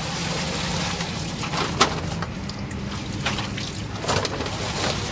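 Water sloshing and splashing in a plastic tub as fish are handled by hand, with a few short sharp splashes or knocks, the loudest about two seconds in. A steady low hum runs underneath.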